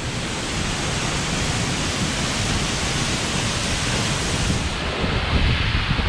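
Loud, steady rush of a tall waterfall crashing down, heard from close up near its base.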